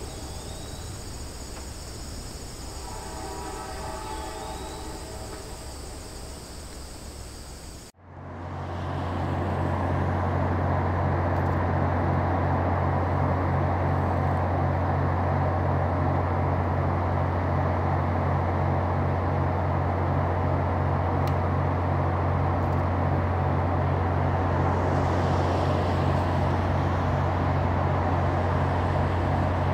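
Diesel freight locomotives, a pair of GE Dash 8s and an EMD Dash 2, approaching under power with a loaded train: a steady low engine drone with an even pulsing beat. It begins about eight seconds in, after a short intro sound cuts off abruptly.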